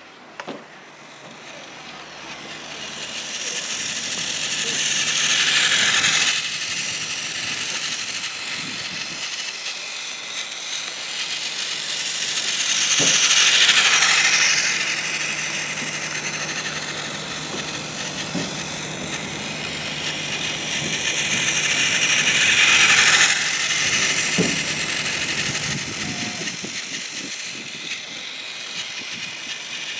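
Battery-powered Plarail toy train running on plastic track, its motor and wheels growing loud three times as it passes close and fading in between.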